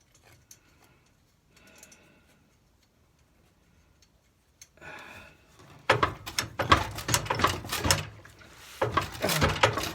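Metal tools and tractor parts clanking and rattling, in two bouts of rapid knocks starting about six seconds in, the second bout near the end.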